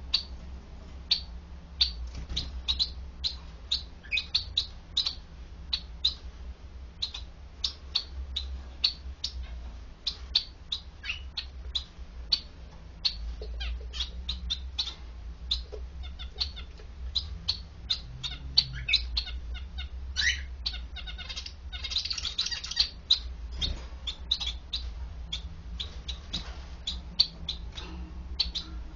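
Zebra finches in a cage calling: a rapid run of short, high chirps, several a second, with a denser burst of chatter about two-thirds of the way through.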